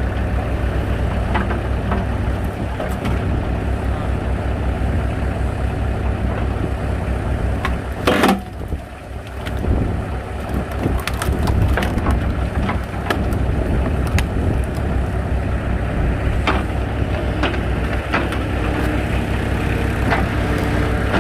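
Engine running steadily to power a hydraulic log splitter, with scattered sharp cracks as firewood splits under the ram. About eight seconds in there is one loud, squealing creak.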